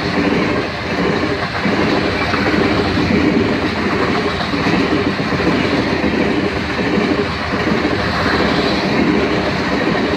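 Train passing close by: railcar wheels rolling and clacking over the rails in a loud, steady rush.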